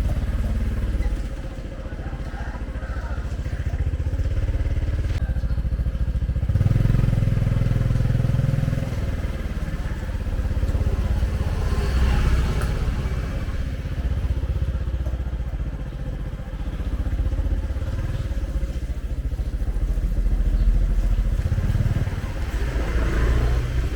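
Motorcycle engine running steadily with a low rumble that swells a little now and then.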